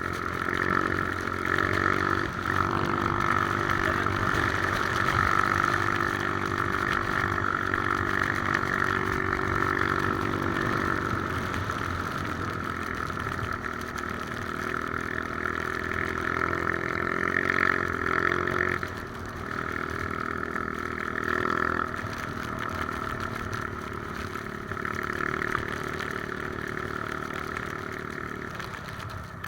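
Three-wheeler ATV engine running under way, its pitch stepping up and down several times.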